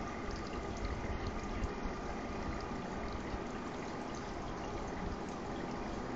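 Steady trickle of running water in an aquarium, as from the tank's filter.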